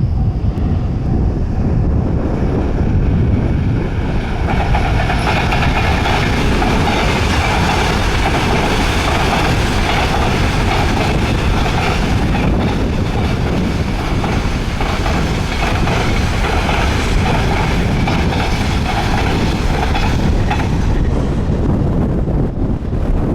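Train running past at close range: a steady, loud rumble of wheels on the rails, with a harsher rolling noise through the middle of the passage.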